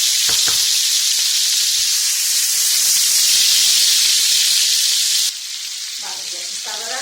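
Chunks of chicken breast frying in hot oil in a shallow pan: a loud, steady sizzle as the pieces brown. The sizzle drops sharply about five seconds in and carries on more quietly.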